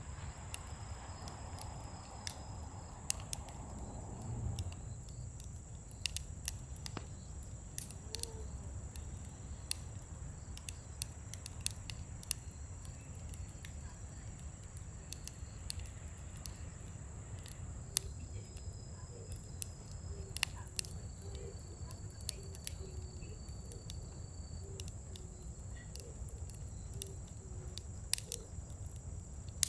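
Scrap-wood fire crackling, with irregular sharp pops and snaps scattered throughout over a low steady rumble.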